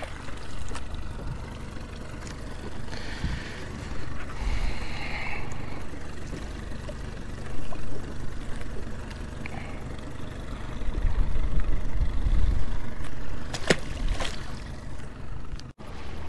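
Boat under way at trolling speed: a steady low motor rumble with water and wind noise, swelling for a couple of seconds in the second half, and two sharp clicks near the end.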